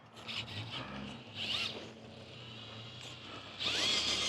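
Electric motor and gearbox of an RC rock-crawler buggy whining in short throttle bursts, the pitch bending up and down. A longer, louder burst comes near the end.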